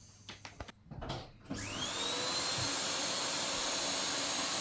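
A few clicks and knocks, then about a second and a half in a Hoover vacuum cleaner switches on. Its motor whine rises as it spins up, then runs steadily.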